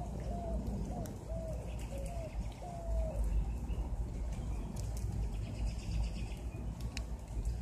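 A bird calling outdoors: a run of about six short, low notes in the first three seconds, the last one longest, over a steady low rumble.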